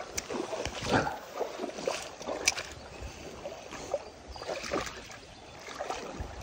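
River current flowing and lapping against a stony bank, with a few sharp clicks and rustles from a spinning rod, reel and lure being handled.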